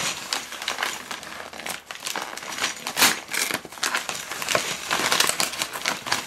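A brown paper jiffy bag (padded mailing envelope) being torn open and crumpled by hand: an irregular run of crinkling and ripping paper.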